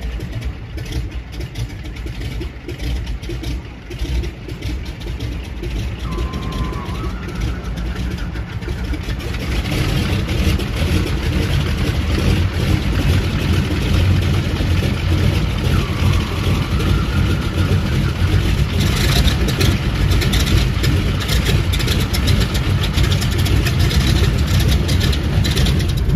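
Radial engines of a 1928 Ford Tri-Motor running just after a cold start: a rough, steady rumble that grows louder about ten seconds in.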